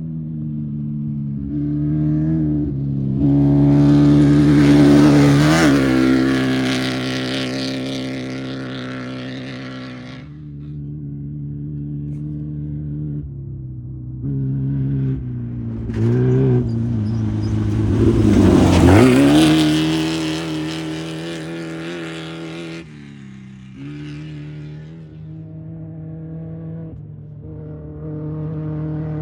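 Off-road race vehicles' engines running at speed and passing by. Two pass close and loud, one about four to six seconds in and another about two-thirds through, each dropping in pitch as it goes by. Other engines keep running steadily in between.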